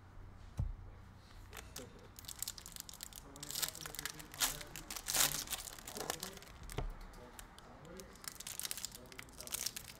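Foil trading-card pack being torn open and its wrapper crinkled: a dense run of sharp crackles, after a single thump about half a second in.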